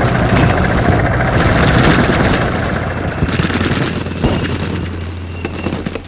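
Rapid small-arms and machine-gun fire over the steady low rumble of heavy military vehicle engines. The firing thins to a few separate sharp shots in the second half as the whole thing fades out.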